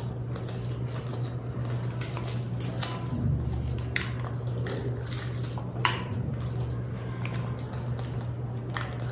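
Close-miked eating sounds: chewing with wet mouth clicks and smacks, a fried kachori torn apart by hand with sharp crackles, and a piece squished into curry. A steady low hum runs underneath.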